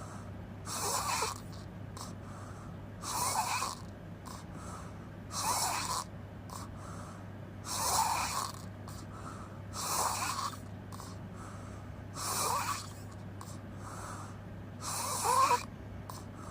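A person snoring with the mouth open: seven snores at an even pace of about one every two seconds, each lasting under a second, the last one the loudest.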